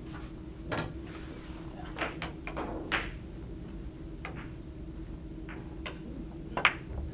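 Billiard balls clicking on a carom table: about seven separate sharp clicks and knocks, the loudest near the end, over a steady low hum.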